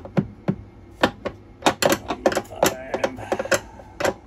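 Wrench clicking irregularly on the nut of an RV toilet's floor mounting bolt as it is turned a quarter turn at a time to tighten the toilet down onto its gasket: a dozen or so sharp clicks and taps.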